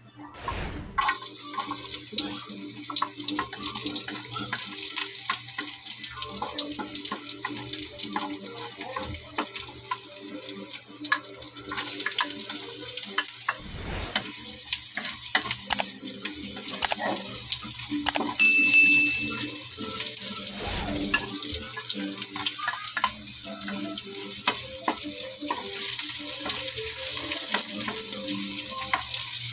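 Ginger, garlic and then red onion sizzling and crackling in hot oil in a metal wok, stirred with a wooden spatula that scrapes and taps against the pan. The sizzle grows a little louder about halfway through as more is added.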